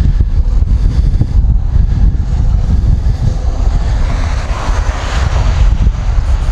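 Heavy wind buffeting the microphone of a camera riding along on a moving bicycle, with a rushing noise that swells and fades about four to five seconds in.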